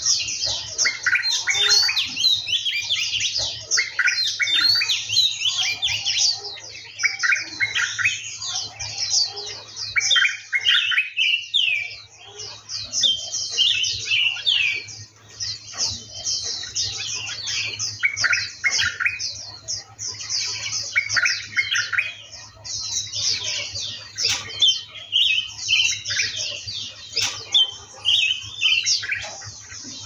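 A chorus of many songbirds calling and singing at once: dense, overlapping, high-pitched chirps and short trills without a break.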